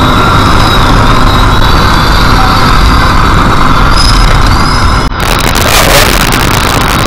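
Car driving at highway speed, heard from inside the cabin: a loud, steady rush of road, tyre and wind noise over the engine. About five seconds in, the sound briefly dips, then turns harsher and hissier with rapid crackling.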